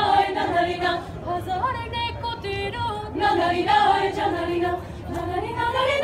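Youth choir singing a cappella, unaccompanied voices holding sustained notes; the singing eases briefly about five seconds in, then swells again near the end.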